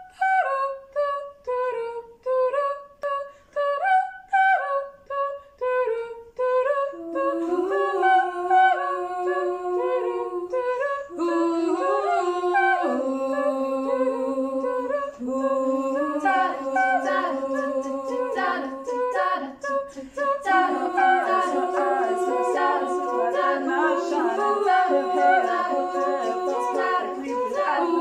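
An a cappella group singing in close harmony, with no instruments. It opens with a single line of short, detached notes, and from about seven seconds in, held lower chords join beneath it and build into a full multi-part arrangement.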